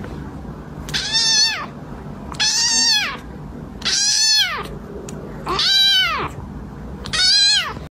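A kitten meowing five times, about every one and a half seconds. Each meow is high and short, rising and then falling in pitch.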